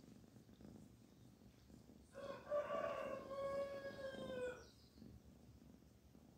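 A rooster crows once about two seconds in, one long call of a little over two seconds that falls slightly at its end, over a kitten's soft steady purring.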